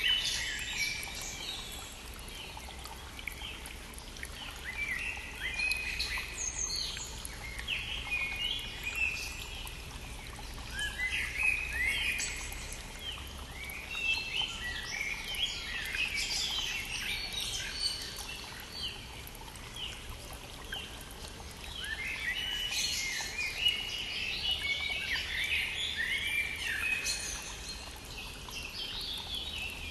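A chorus of songbirds singing in spring, with bursts of quick rising and falling phrases coming and going in clusters, over the steady rushing of a stream.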